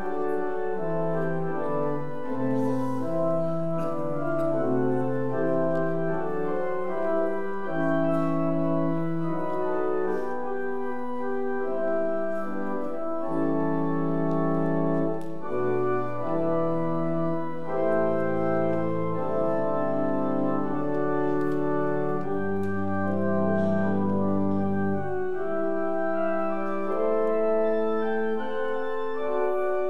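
Church organ playing a slow piece in held chords, with deep bass notes coming in about two-thirds of the way through.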